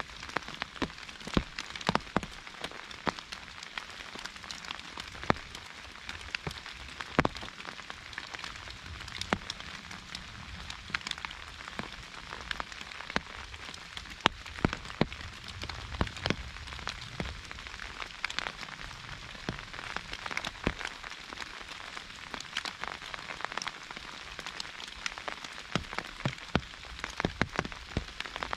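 Rain pattering on an umbrella: a steady hiss of rain with heavier single drops striking sharply at irregular moments.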